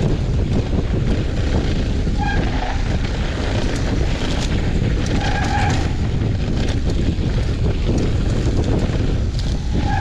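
Wind buffeting the microphone and a mountain bike's tyres rolling fast over loose, dusty dirt singletrack, with light rattling clicks and two brief squeals about three seconds apart.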